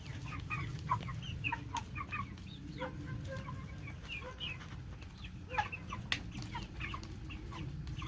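A flock of young meat chickens peeping and clucking while they feed, many short overlapping calls, over a steady low hum with a few sharp ticks.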